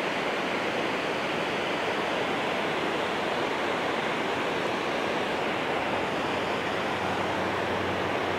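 Water rushing over a dam spillway and through the rocky river below it: a steady, unbroken rushing noise.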